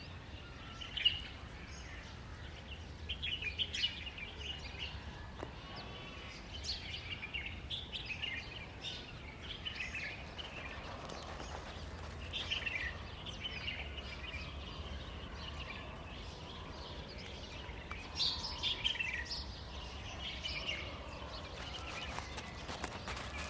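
Small birds chirping and calling repeatedly over a steady low rumble, with one sharp click about a second in.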